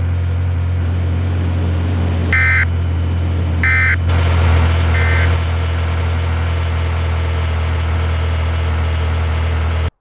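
Steady low drone of a vehicle with its engine running, with three short electronic beeps a little over a second apart. The sound cuts off abruptly near the end.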